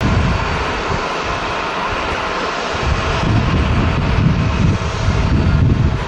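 Jet engines of a twin-engine Boeing 767 airliner on final approach, a steady roar with a faint whine. Gusts of wind buffet the microphone, easing briefly about a second in.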